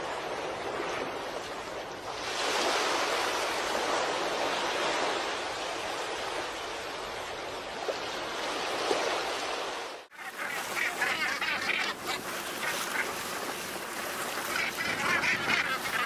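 A steady rushing splash of water, many small fish churning the surface around a boat. It cuts off about ten seconds in and gives way to a flock of northern gannets calling over the sea, many overlapping calls at once.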